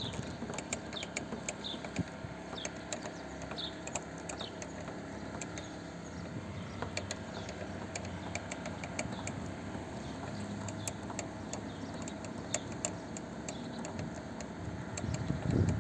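Screwdriver tightening the retaining screw of a car door lock cylinder, making a run of small, irregular metal clicks and ticks over a quiet background.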